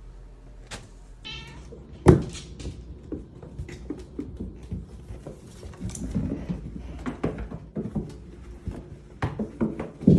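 A cat meows briefly about a second in. A sharp knock follows at about two seconds, the loudest sound here, then scattered clattering and rustling.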